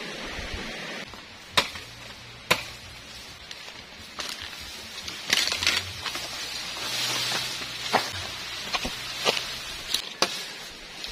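A shallow stream runs with a steady rush for about the first second. After that, about ten sharp chopping knocks on bamboo come at uneven intervals, with a brief rustle of bamboo leaves midway.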